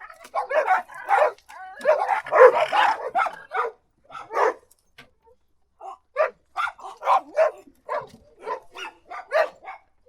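A dog barking in quick runs of sharp barks, dense and overlapping for the first few seconds. After a pause of about a second and a half, the barks resume at about two a second.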